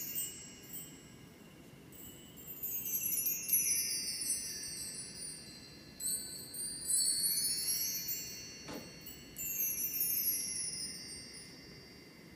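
Bar chimes (a mark tree of hanging metal bars) swept by hand three times. Each sweep is a shimmering glissando of high ringing notes that rings on and fades. A light knock comes about nine seconds in.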